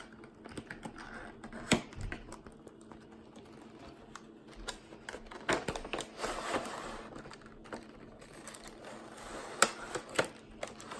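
Plastic toy packaging being cut with scissors and handled: scattered sharp clicks and snips with stretches of crinkling rustle, the loudest click near the end.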